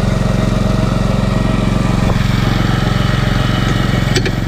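Ranger utility vehicle's engine idling steadily while the spray rig is flushed, with a short knock near the end.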